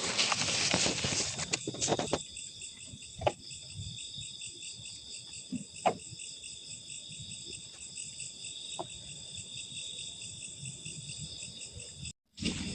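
Crickets and other night insects trilling steadily at several high pitches. Rustling handling noise fills the first two seconds, a few faint knocks come later, and the sound cuts out briefly near the end.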